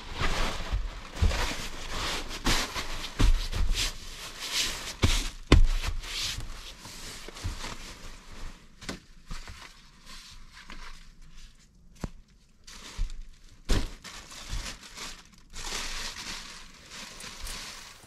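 Crinkling and rustling with many scattered knocks and thumps, busiest in the first seven seconds, the loudest knock about five and a half seconds in. A quieter stretch follows with a few sharp clicks, then more rustling near the end.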